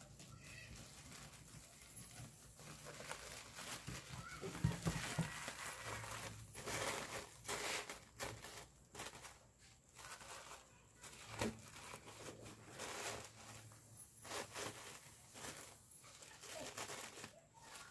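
Stiff bouquet wrapping of jute burlap mesh and sisal fibre rustling and crinkling in irregular bursts as it is folded and gathered by hand.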